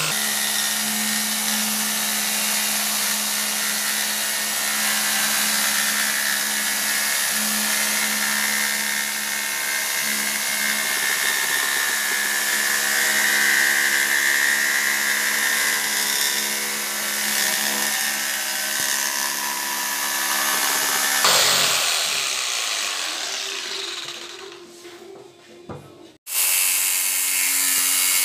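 Metabo electric jigsaw running and cutting lengthwise through a wooden board: a steady motor hum with the blade's fast reciprocating chatter. About 21 seconds in it fades away, and near the end it starts running again.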